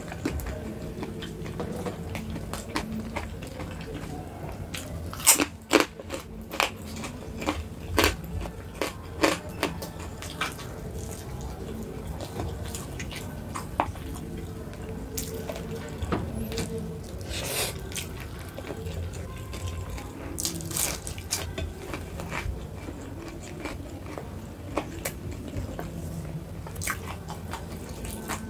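A person eating close to the microphone: chewing and crunching bites of food, with a run of sharp, crisp cracks between about five and ten seconds in and a few more later.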